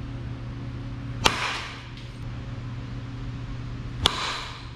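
Softball bat striking a pitched softball twice, about three seconds apart: two sharp cracks, each followed by a short fading rush. A steady low hum runs underneath.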